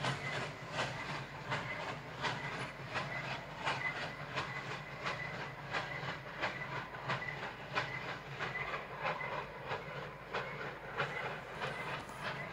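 Steam locomotive working steadily, its exhaust chuffing in an even rhythm of about three beats a second over a low steady rumble.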